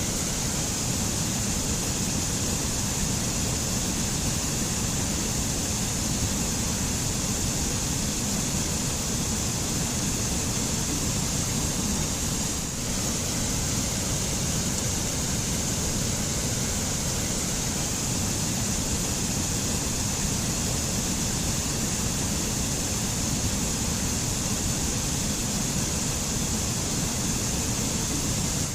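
White water of a mountain stream rushing over rocks and splashing into pools, a steady full rushing noise.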